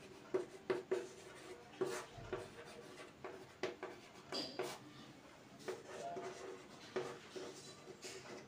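Chalk writing on a chalkboard: a faint, irregular run of short taps and scratches as letters are formed.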